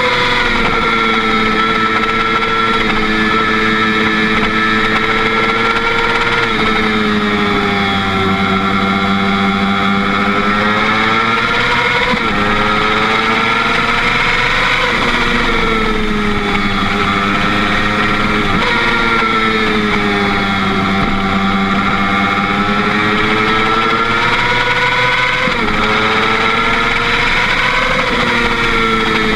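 Motorcycle engine running at road speed. Its pitch sags and climbs through the bends, with a sudden jump in pitch every few seconds as the gears change.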